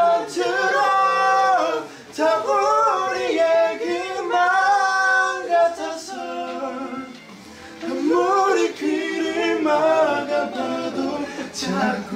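A cappella singing: voices holding and sliding between notes, with little or no accompaniment and brief breaks between phrases.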